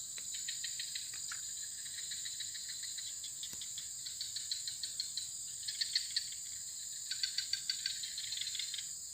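Insects chirping in chorus: a steady high whine under fast pulsing trills that swell and fade.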